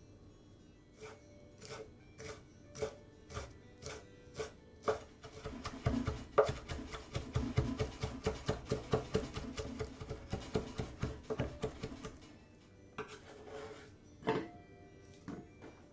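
Kitchen knife cutting raw shrimp on a bamboo cutting board: single cuts about once a second at first, then rapid chopping at about four to five strokes a second as the shrimp is minced, with a few last knocks near the end.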